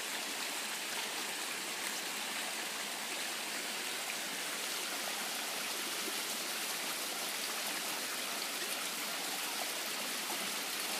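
Small rocky creek running, a steady rush of water over stones.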